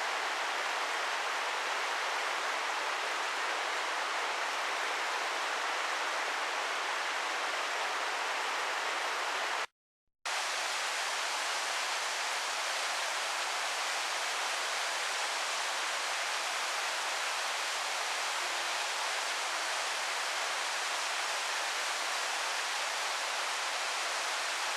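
Shichigen Falls waterfall rushing in a steady, even hiss of falling water. It drops out to silence for about half a second around ten seconds in.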